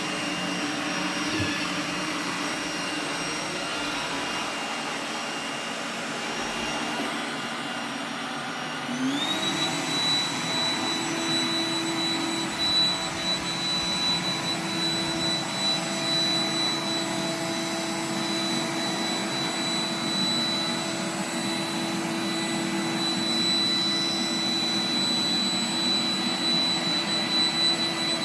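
Roomba 980 robot vacuum running, a steady motor whine with brush and suction noise. About nine seconds in, its pitch rises quickly and it gets louder, then holds at the higher pitch.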